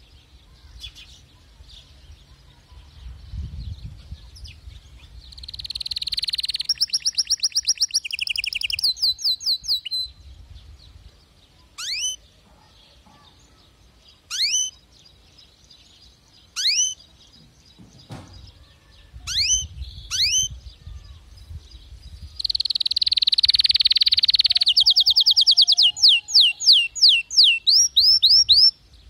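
Domestic canary singing: two long song phrases of fast trills and rolls, one about six seconds in and a longer one from about twenty-two seconds to near the end, with single sharp downward-sweeping notes spaced out between them.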